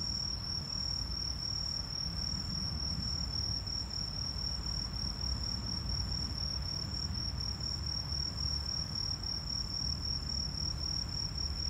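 Night insects chirring in a continuous, steady high-pitched trill, over a low steady background rumble.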